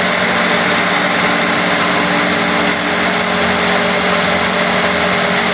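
Bulldozer's diesel engine running steadily with an even, unchanging hum.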